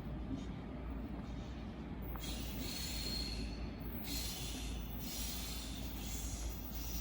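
Train running past on the line: a steady low rumble with surges of hiss every couple of seconds, and a faint high wheel squeal about two and a half seconds in.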